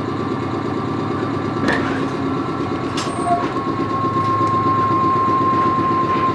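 Wakayama Electric Railway 2270 series electric train running, heard from inside the passenger car: a steady rumble with a couple of sharp clicks. A steady high-pitched tone joins about halfway, and the sound grows a little louder.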